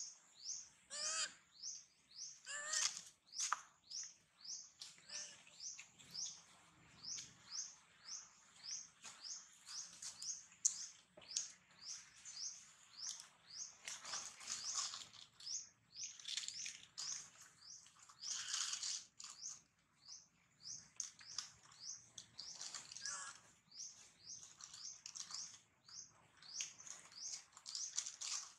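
Steady high chirping, about two to three short chirps a second, with a few louder, longer calls breaking in now and then.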